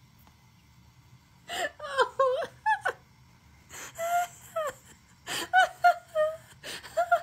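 A woman's high-pitched, wordless vocal sounds in three short spells, her voice sliding up and down.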